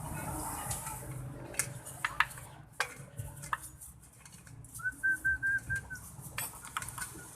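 Scattered light metallic clinks and taps of motorcycle CVT parts and tools being handled. A little under five seconds in, a bird chirps a quick run of about six short, even notes.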